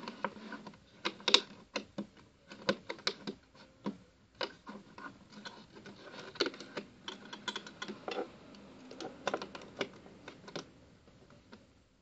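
Irregular small clicks and taps of a metal crochet hook and rubber bands being worked on a plastic Rainbow Loom, like light typing, thinning out near the end.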